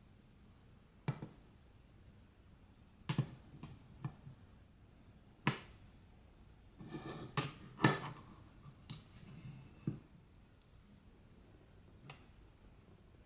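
Miniature ceramic and glass bowls set down one after another on a small wooden table: a string of light clinks and knocks, about nine in all, with a brief rustle in the middle.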